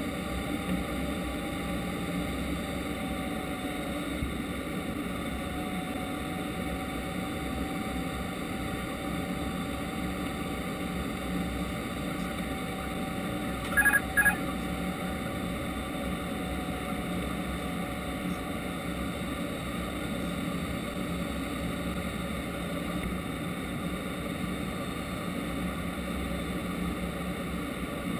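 Steady airflow and hum in an Airbus A330-200 cockpit on approach. About halfway through, two short electronic tones half a second apart, the loudest sound here: the autopilot disconnect warning.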